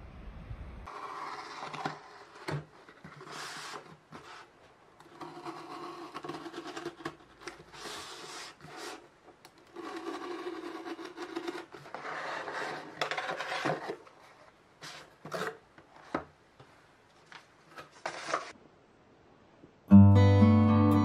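A cardboard shipping box being opened by hand: a box cutter slitting the packing tape in several scraping strokes, with clicks, knocks and cardboard rustling. Acoustic guitar music starts loudly near the end.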